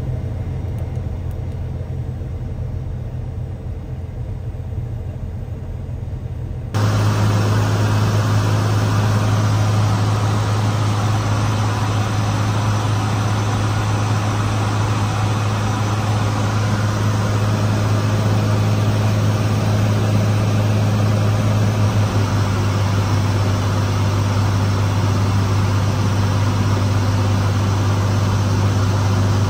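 Cirrus SR22's six-cylinder piston engine and propeller running at low power on the ground as a quieter low hum. About seven seconds in, it changes suddenly to the much louder, steady drone of the engine in flight, heard from inside the cabin, with a strong low tone throughout.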